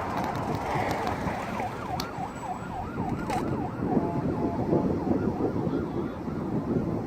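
Emergency vehicle siren in a fast yelp, rising and falling about three times a second, over a steady rumbling noise.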